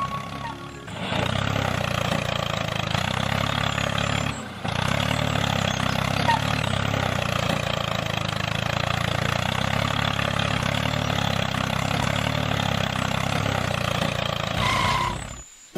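A tractor engine running steadily, with a short break about four and a half seconds in, stopping just before the end.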